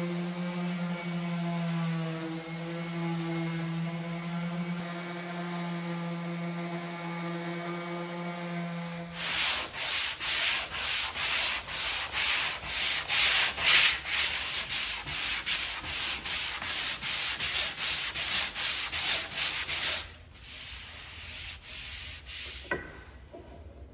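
Random orbital sander running steadily on a wooden rudder blade. About nine seconds in it gives way to hand sanding with a long sanding board: evenly repeated rasping strokes, about two a second, for some ten seconds as the rudder is faired. Near the end there is quieter rubbing and a single click.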